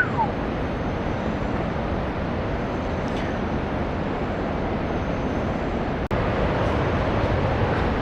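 Steady rushing rumble of the Río Celeste waterfall and river, an even noise with no distinct events. It breaks off for an instant about six seconds in and comes back slightly louder.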